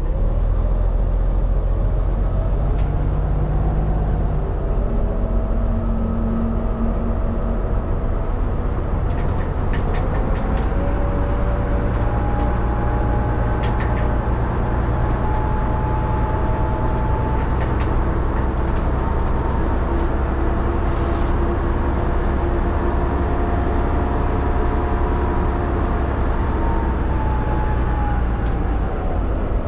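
The Leyland 680 11.1-litre diesel engine of a 1976 Leyland Leopard city bus running steadily, its note shifting in pitch several times, with a few faint clicks.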